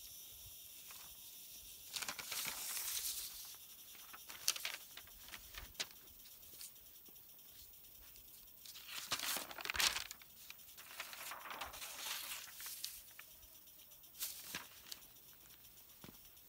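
Sheets of drawing paper rustling and crinkling as they are handled and swapped on concrete, in several short bursts a few seconds apart, loudest about two-thirds of the way through.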